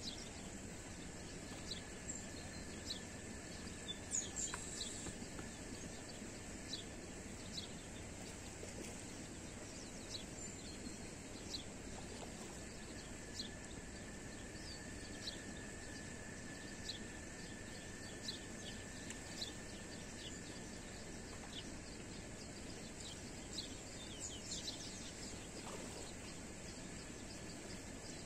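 Steady outdoor background noise with many short, high bird chirps scattered throughout, and a faint steady high tone running underneath.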